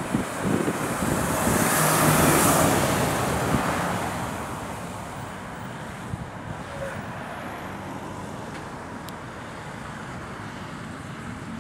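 Lorry driving past, its engine and tyre noise swelling to a peak about two seconds in and then fading to a steady lower rumble.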